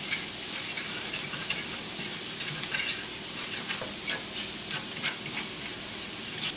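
Diced shallot sautéing in melted butter in a frying pan: a steady sizzle, with scattered scrapes and taps from a utensil stirring the pan, most of them in the middle of the stretch.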